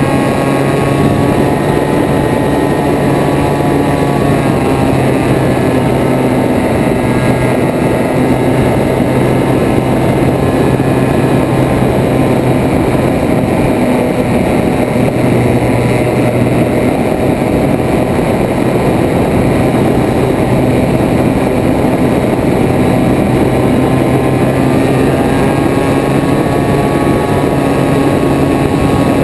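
Light aircraft's engine and propeller running steadily in cruise flight, with heavy wind rush over the wing-mounted camera.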